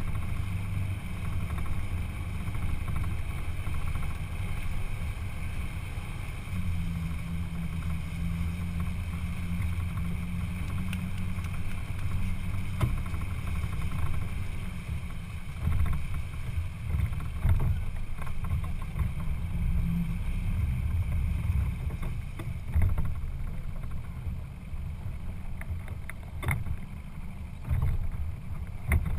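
A boat under way: a steady low rumble runs throughout, with a few sharp knocks near the end.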